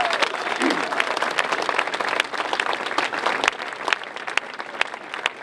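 Crowd applauding, dense at first and thinning out after about three and a half seconds.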